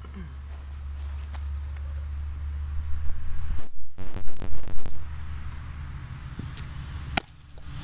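Steady high-pitched chorus of insects, one continuous trill, over a low hum. A burst of irregular low knocks comes in the middle, and a single sharp smack near the end.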